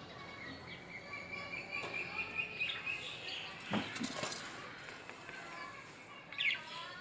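Caged lovebirds chirping and chattering. A thin high call is held for a couple of seconds, a few sharp knocks follow around the middle, and a quick sweeping squeak comes near the end.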